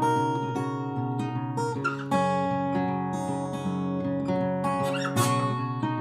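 Background music: an acoustic guitar picking sustained chords, with new chords struck about two seconds in and again near the end.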